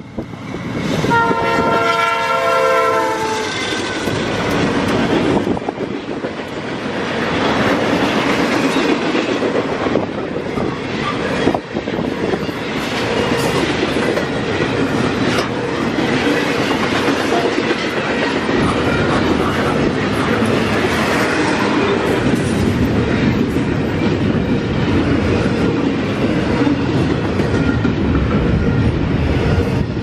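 Freight locomotive's multi-note air horn sounds about a second in and holds for roughly two and a half seconds. Then the locomotives and a long double-stack container train pass close by, a loud, steady rumble of wheels on the rails with occasional sharp clanks.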